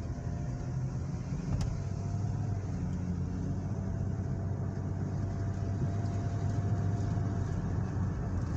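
Inside a moving car's cabin: steady engine hum and tyre noise on a wet road, with a single short click about a second and a half in.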